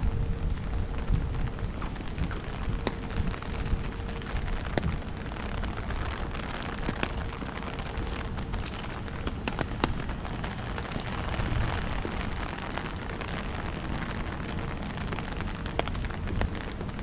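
Rain falling in the street, with gusting wind buffeting the microphone as an uneven low rumble. Many sharp little clicks run throughout, likely raindrops striking close by.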